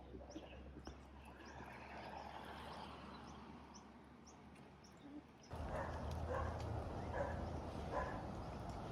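Small birds chirping: short, high chirps repeated every half second or so. About halfway through, a louder low rumble of background noise comes in.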